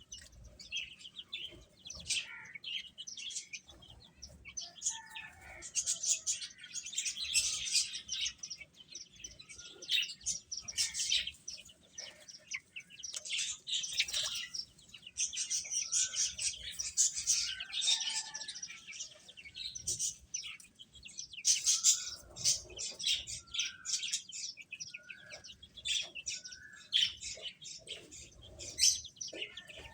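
Domestic chicks peeping: many short, high chirps overlapping continuously, with a few lower, shorter calls scattered among them.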